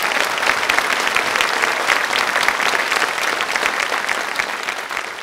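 Audience applauding: many hands clapping in a dense, even patter that begins to fade near the end.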